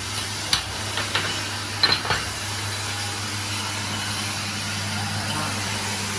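A few light hammer taps and metallic clinks on steel welding plates, about five in the first two seconds, over a steady low hum and hiss.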